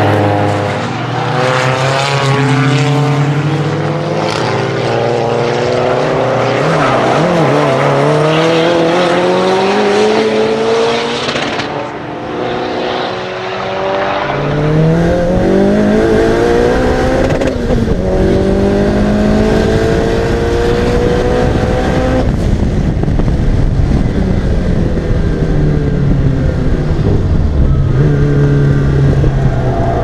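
Lancia Delta Integrale 16v's tuned turbocharged four-cylinder engine pulling hard on track, its revs rising and falling. It is heard first from trackside, then from inside the cabin from about halfway through, where the engine pitch climbs and drops back at each upshift over a heavy road rumble.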